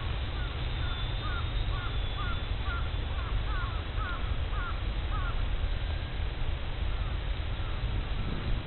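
A bird calling in a quick series of short, curving calls, about two a second for some five seconds, then a few fainter calls near the end, over the low rumble of strong wind on the microphone.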